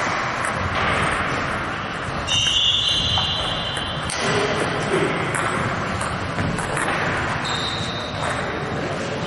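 Table tennis ball being struck by paddles and bouncing on the table in a rally, echoing in a large sports hall over background chatter and play from other tables.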